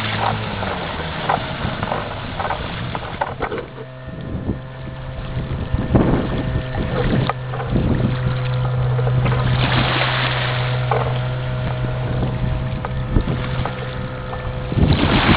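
Small motorboat under way: a steady engine hum with water splashing and wind buffeting the microphone in gusts.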